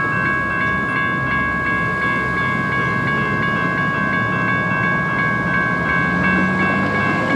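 Railroad grade-crossing warning bell ringing steadily at about three strikes a second over the low rumble of a train. The bell keeps sounding while the crossing gates lift after the train has cleared.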